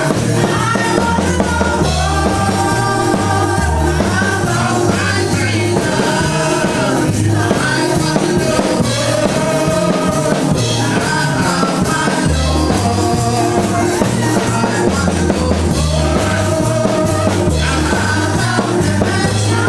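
Amplified live gospel praise music: singing through a microphone over a band with drums and a moving bass line, playing without a break.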